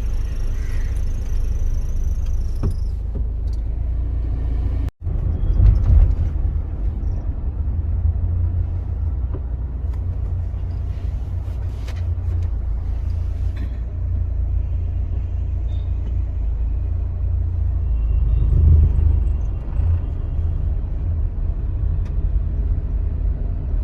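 Steady low road and engine rumble inside a moving car's cabin, broken by a momentary dropout about five seconds in.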